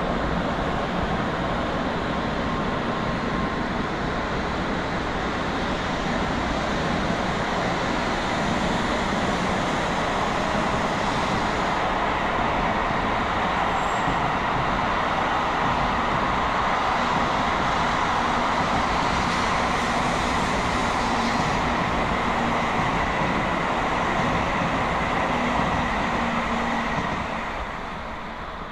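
N700-series Shinkansen bullet train passing through at high speed: a steady rushing of wheels on rail and air, with a faint high whine in it. The sound falls away near the end as the tail of the train pulls off into the distance.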